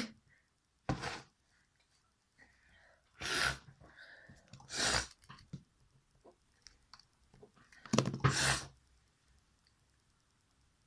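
A person's short, noisy sneeze-like bursts of breath through the nose, four of them spread over several seconds, the last and longest a double burst about eight seconds in, with faint clicks between.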